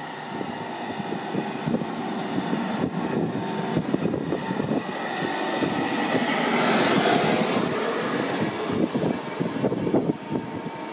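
LNER InterCity 225 train, led by its Mk4 driving van trailer, rolling past along the platform. Wheels rumble and click on the rails, with a rushing hiss that builds to its loudest about seven seconds in.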